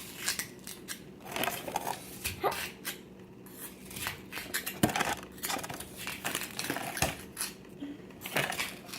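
A digging tool scraping and chipping at a water-softened dig-kit block, with irregular sharp clicks and scrapes as bits break away.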